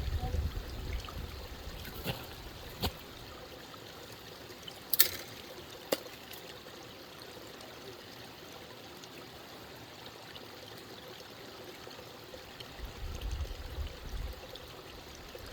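Water trickling and running steadily through a beaver dam, with a few short sharp clicks about two, three, five and six seconds in.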